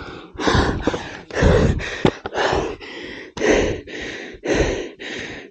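A person breathing hard, close to the microphone, from exertion. About five breaths, each a louder breath followed by a softer one, roughly one breath a second.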